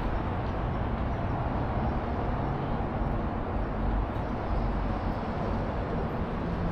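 Steady, even low rumble of city background noise with a faint hum underneath and no distinct events.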